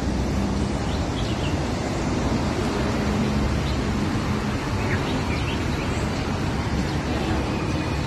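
Steady splashing of water spilling over the tiered basins of a garden fountain into its pool, with a few faint, short bird chirps now and then.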